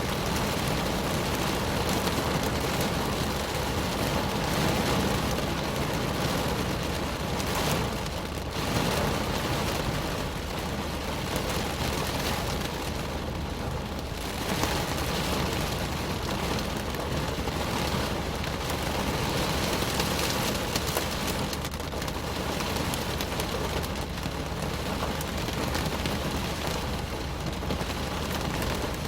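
Steady rain drumming on a car's roof and windows, heard from inside the cabin: a dense, even patter that swells a little now and then.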